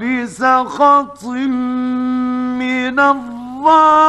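Male Quran reciter chanting in melodic tajweed: short syllables with gliding pitch, then a long held note from about a second and a half in, growing louder into ornamented turns near the end. Archival 1950s Egyptian Radio recording.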